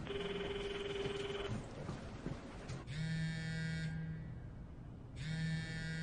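A telephone ringback tone, a steady purring tone for about a second and a half, then a mobile phone buzzing twice in long pulses about two seconds apart as the call comes through.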